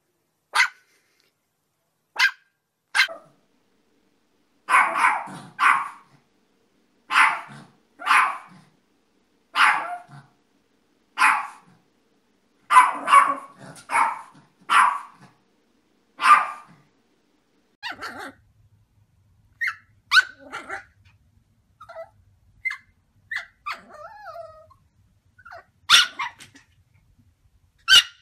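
Yorkshire terriers barking in separate short barks. A few sharp yaps come first, then a run of louder barks about a second or so apart, then scattered small yips and whines over a faint low hum, and a couple of sharp yaps near the end.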